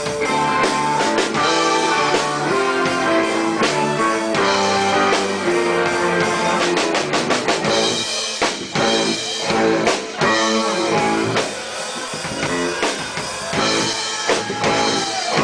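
A live band playing a rock song, with drum kit and guitar, loud and steady.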